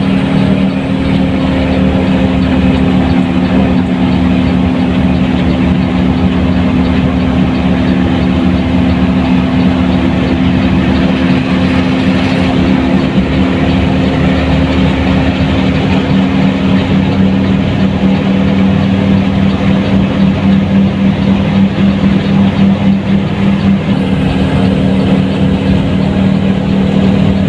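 Front-mounted diesel engine of a Mercedes-Benz 1623 bus running with a loud, steady drone that holds one pitch throughout.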